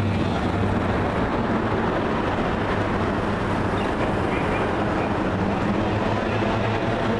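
Racing powerboat engines droning steadily out on the course, with a low steady hum underneath.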